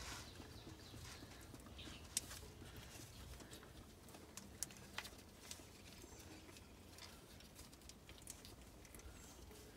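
Faint rustling and a few light scattered clicks of a gloved hand wiping a greasy engine surface with a paper towel, the sharpest click about two seconds in.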